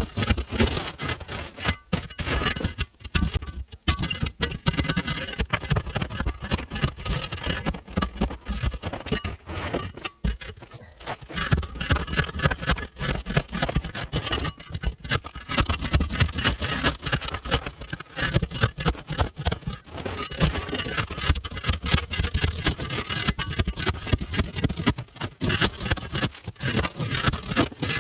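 Old roofing being scraped and pried off a roof deck, a busy run of scrapes and knocks, with guitar music playing over it.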